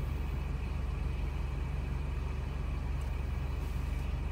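Car engine idling while stationary, a steady low hum heard from inside the cabin.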